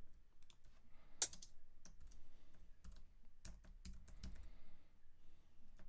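Computer keyboard keys clicking: scattered key presses while a name is typed, with one sharper click about a second in.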